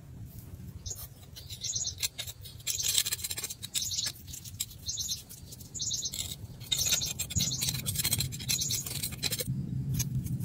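Loose molding sand crunching and scraping as a fresh metal casting is dug out of its sand mold, with small birds chirping in short bursts several times.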